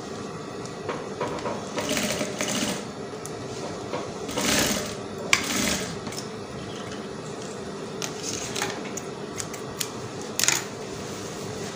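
Industrial sewing machine running with a steady motor hum, with several short louder spells of stitching and fabric handling as the zip seam of a net and lining dress is worked.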